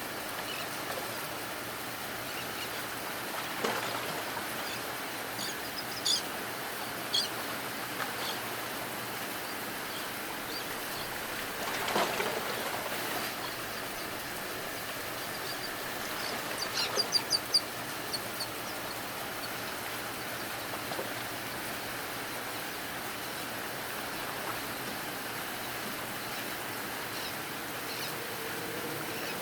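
Steady rain falling, with a few short bird calls scattered through it and a quick run of high chirps about seventeen seconds in.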